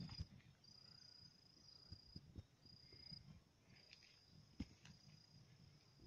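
Faint, high, steady insect trilling on one pitch, coming and going in several phrases of up to about two seconds, over faint low handling rumble with a few soft taps.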